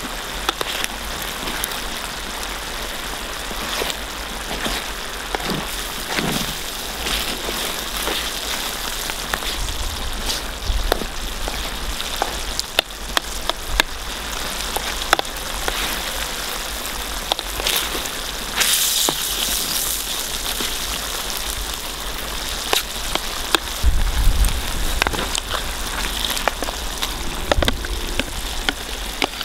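Seafood paella simmering and sizzling in a large pan over a wood fire: a steady bubbling hiss full of sharp crackles and pops. There is a brief low rumble near the end.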